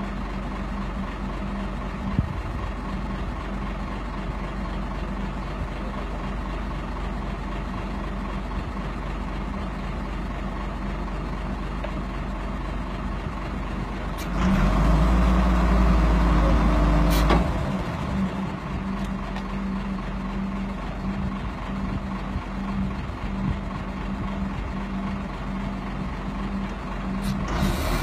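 Truck-mounted crane's engine running steadily, growing louder for about three seconds midway as it drives the crane, then dropping back with a sharp click.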